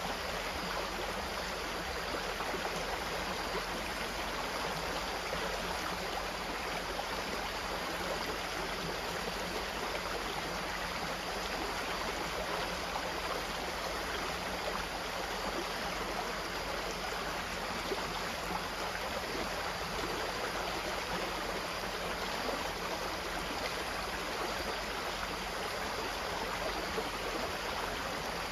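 Running water flowing steadily: an even, unbroken rush with no single splashes standing out.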